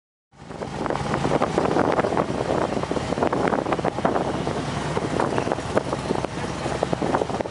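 Motorcycle engines running, a loud steady din with many sharp crackles over a low hum, cutting in abruptly just after the start.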